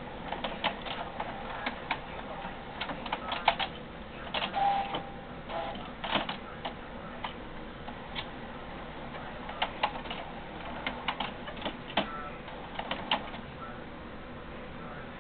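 HP C7280 all-in-one printer's mechanism working: irregular clicks and clacks over a steady hum, with one brief tone about four and a half seconds in.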